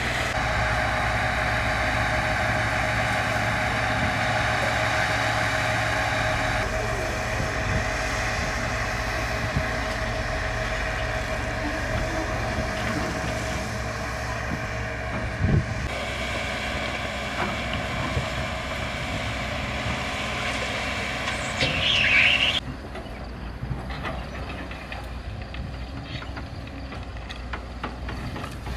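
Heavy diesel machinery (tracked excavators and a dump truck) running steadily. A brief, louder high-pitched sound stands out about three-quarters of the way through, after which the engine sound is quieter.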